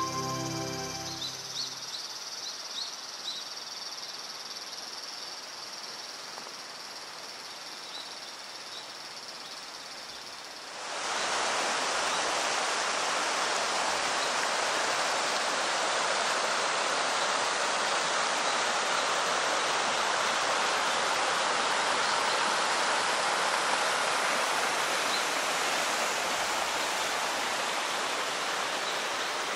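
Running water of a mountain river, a steady rush. For about the first ten seconds it is softer, with a faint high steady insect chirring. About eleven seconds in, the water suddenly becomes much louder and fuller, as if heard from right beside it.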